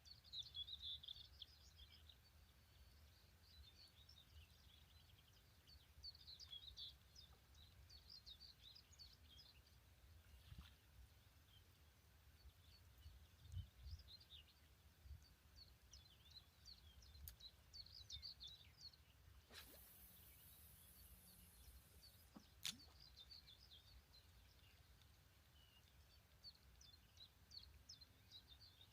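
Faint birds chirping in repeated short clusters, over a low rumble. A brief hiss comes about twenty seconds in, followed by a single sharp click.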